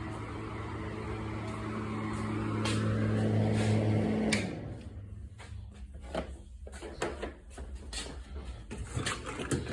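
An electric motor hums steadily and grows louder, then winds down and stops about four seconds in. After that come scattered light clicks and rattles of small parts being handled.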